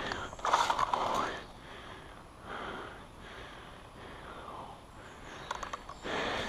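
A person breathing or sniffing close to the microphone, in a few soft, noisy swells.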